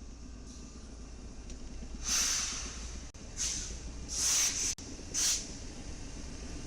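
Four short bursts of air hissing from a train's air brake system, over a steady low rumble.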